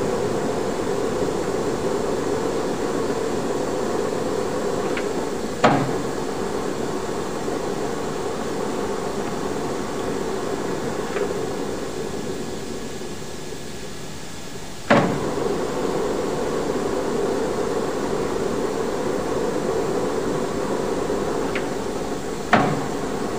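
Metal lathe running steadily while a threading tool cuts a screw thread on a steel bolt. The steady hum is broken three times by a sharp metallic clank, about eight to nine seconds apart.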